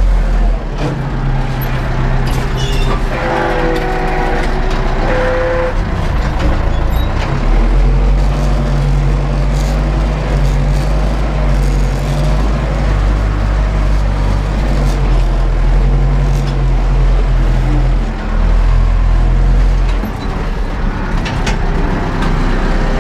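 Ursus 914 tractor's diesel engine running steadily under load, heard from inside the cab, with scattered knocks and rattles.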